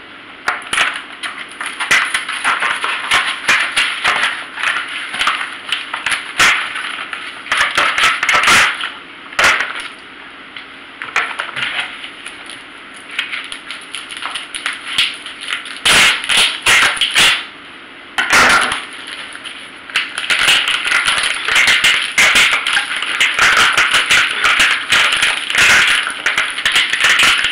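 Plastic oven bag and food packaging crinkling and rustling as they are handled, thick with sharp crackles and clicks, busiest in the last third.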